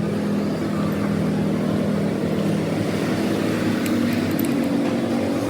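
A machine running steadily with a low, even hum. A second tone grows in partway through.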